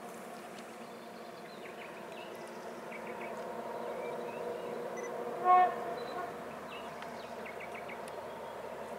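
Distant diesel freight locomotive drawing closer, its engine drone growing slowly louder. A single short, loud horn toot comes about halfway through. Faint insect chirps are heard throughout.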